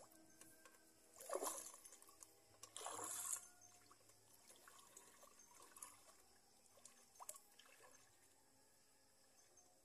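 Water splashing and trickling in two short bursts about a second and a half apart, followed by a few faint clicks.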